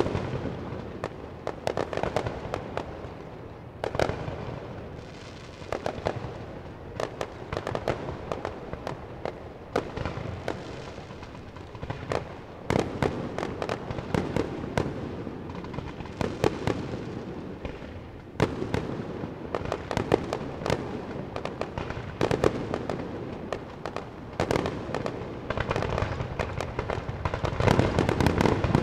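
Aerial fireworks display: shells bursting and launching, with many sharp bangs in quick succession, growing denser and louder near the end.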